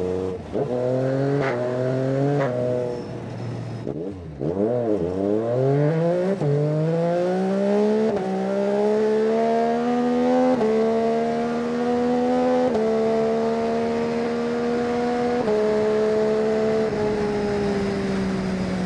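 Yamaha Tracer 9 GT's inline three-cylinder engine pulling hard up through the gears, its note rising in each gear and stepping down at every upshift. About four seconds in, the revs drop sharply and climb again.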